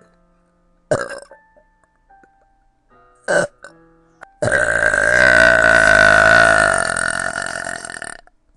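Two brief sounds, about one and three and a half seconds in, then a long, loud belch of about four seconds at a fairly steady pitch, fading toward its end.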